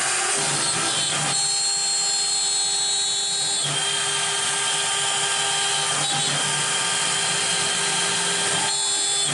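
CNC router spindle running with a steady high whine as a 1/8-inch end mill cuts wood. The whine's tones shift slightly in pitch a few times as the cut goes on.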